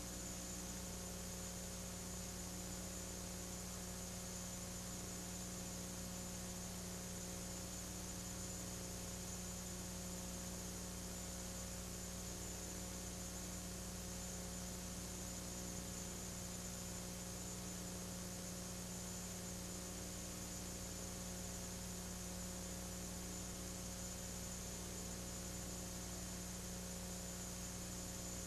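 Steady electrical mains hum with a faint hiss underneath, unchanging, with no other sound.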